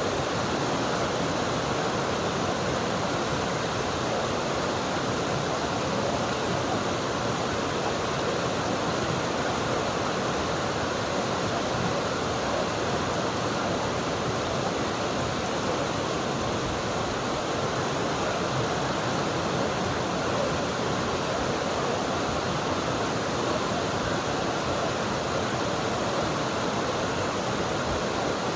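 River water flowing and rushing in a steady, unbroken wash.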